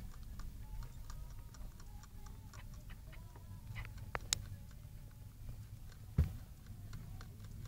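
Hamster licking the metal sipper tube of a cage water bottle while drinking: quick, even ticks, about six a second. A sharper click comes about four seconds in and a low thump about six seconds in.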